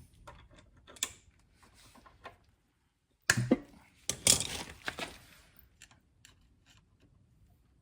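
Scattered clicks and knocks of hard parts or tools being handled, with two louder clunks about three and four seconds in.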